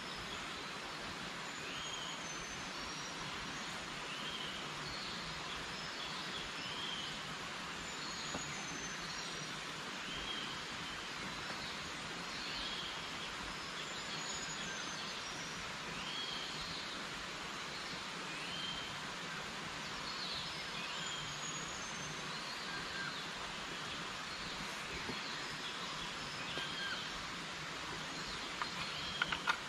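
Forest ambience: a steady hiss of background with a bird giving a short hooked call every couple of seconds, and fainter higher chirps. A few sharp clicks come near the end.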